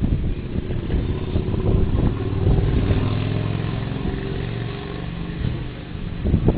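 A motor vehicle engine runs at a steady pitch for a few seconds as it goes by, then fades, over rough outdoor street noise.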